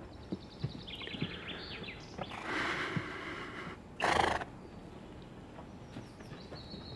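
Outdoor ambience with thin bird chirps in the first second or so, and a short, loud animal call about four seconds in.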